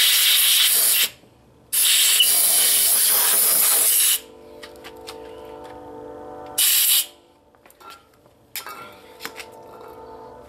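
Compressed-air blow gun blasting air into a freshly tapped threaded bolt hole to clear out chips and solvent, in three bursts: one about a second long, a longer one of about two and a half seconds, and a short one near the end.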